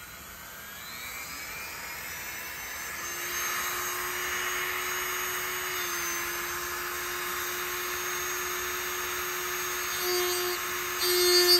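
Dremel rotary tool with a small carving burr running at high speed, cutting into the wooden tote of a hand plane to open up its counterbore. The whine rises in pitch as the motor spins up, then holds steady, getting louder near the end.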